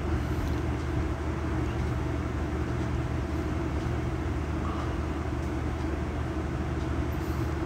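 Steady low mechanical hum and rumble of background machinery, with a few faint clicks of handling.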